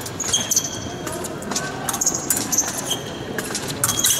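Épée blades knocking and clinking together in several short, separate contacts, some with a brief high metallic ring. Fencers' shoes squeak and stamp on the piste between them, over a steady hall murmur.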